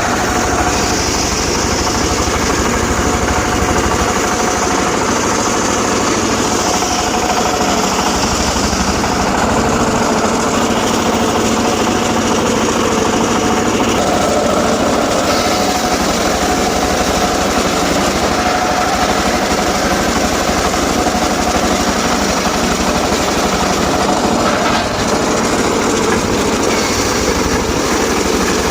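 Engine-driven portable circular sawmill running steadily, its blade sawing teak logs, with a higher hiss that comes and goes in stretches.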